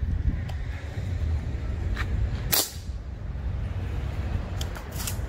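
A single sharp crack about two and a half seconds in: a shot from a Brocock ConceptLite .22 PCP air rifle. It sits over a steady low rumble of passing traffic.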